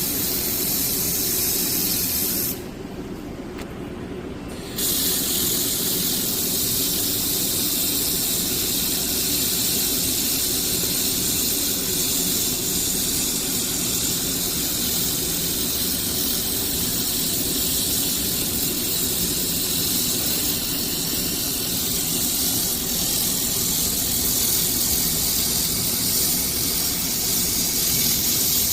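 Handheld laser welding machine in use, giving a steady high hiss over a low hum; the hiss cuts out for about two seconds near the start, then resumes.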